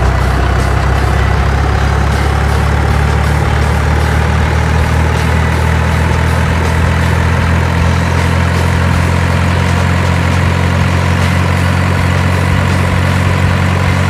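Heavy truck engine running steadily at low revs: a deep, even drone with a faint higher whine that slowly rises in pitch.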